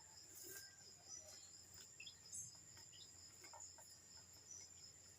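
Faint, scattered short peeps and light ticks from day-old ducklings cheeping and pecking at their feed, over a steady high-pitched trill.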